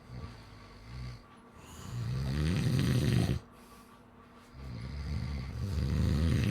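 A sleeping person snoring: two long snores of about one and a half seconds each, growing louder and stopping abruptly, with softer breaths before them.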